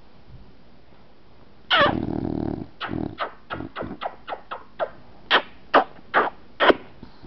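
Dozing bulldog makes one long snoring grunt, then a quick run of short snorts, the last few the loudest.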